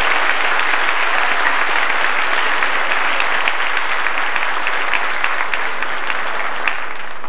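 Audience applauding, a dense patter of many hands that thins near the end, with single claps standing out more and more.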